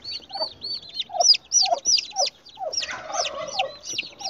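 Turkey poults peeping over and over, high arched peeps about four to five a second, with lower, shorter falling calls mixed in. A brief rustle comes about three seconds in. The peeping is what unsettles the mother turkey hen, as the young are caught and handled.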